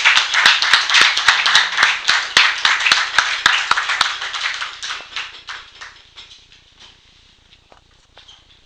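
Audience applauding, loudest in the first few seconds, then dying away over the next few.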